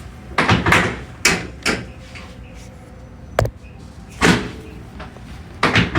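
A series of short knocks and thuds with rustling, irregularly spaced, with one sharp click about three and a half seconds in.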